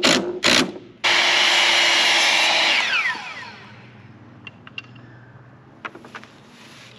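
Cordless drill working into a wooden 2x2 brace: two short bursts, then a steady whir of about two seconds that winds down in pitch as the trigger is let go. A few faint clicks follow near the end.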